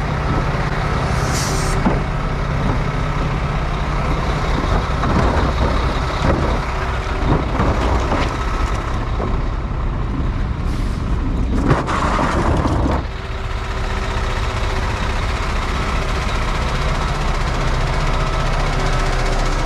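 Heavy vehicle engine running steadily at a job site. There is a short hiss about a second and a half in, a few knocks, and a louder burst of noise around twelve seconds in, after which the engine note settles lower.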